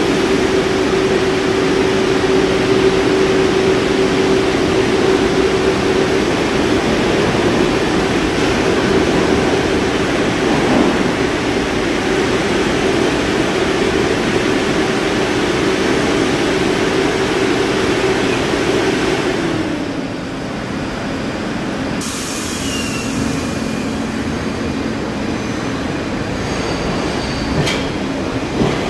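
R62A subway train standing at the platform, its equipment giving a steady hum that drops to a lower pitch about two-thirds of the way through. A few sharp knocks come near the end.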